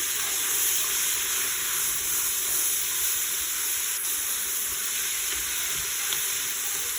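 Chopped spinach, asparagus, onion and garlic sautéing, giving a steady sizzle as the spinach cooks down.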